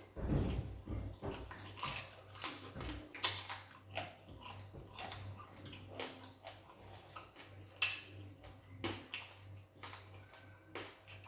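Close-up eating sounds of fufu with egusi soup: irregular wet chewing, lip smacks and mouth clicks, with a dull thump at the start, over a steady low hum.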